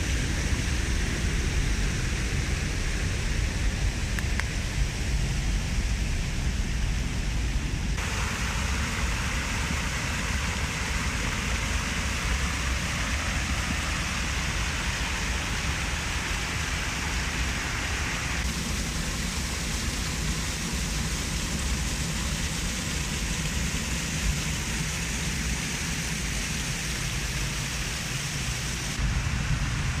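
Water of a stream and a wide, low waterfall spilling over a rock ledge, a steady rushing hiss. The tone of the rush changes abruptly about eight seconds in, again a little past halfway, and once more just before the end.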